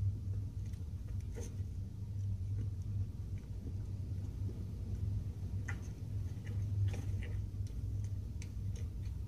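Giraffe calf munching greens from a feed trough: faint scattered crunches and clicks, thicker in the second half, over a steady low hum.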